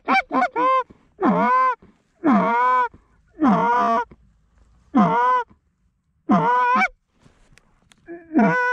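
Canada goose honking: a quick run of short clucks, then six longer honks spaced about a second apart, each bending up and then down in pitch.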